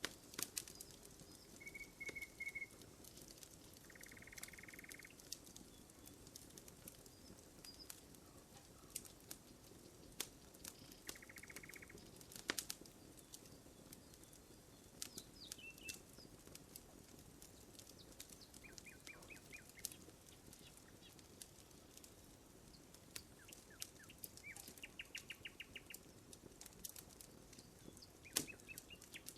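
Wood campfire crackling faintly, with scattered sharp pops. Small birds call every few seconds with short buzzy trills and chirps.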